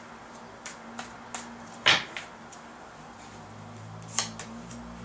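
A deck of oracle cards being shuffled by hand: a run of short card slaps and flicks, the loudest about two seconds in and another just after four seconds.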